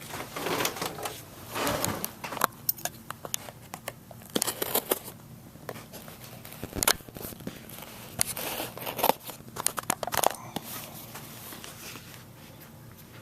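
The glossy cardboard retail box of a Hisense Sero 7 Pro tablet being opened by hand: packaging crinkling and tearing, with many sharp clicks and scrapes. It settles down about ten seconds in.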